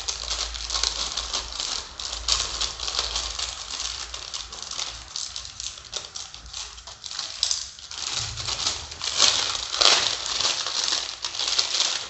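Food wrapping around a paratha being handled and pulled open: continuous crinkling and rustling with quick crackles, growing busiest about ten seconds in.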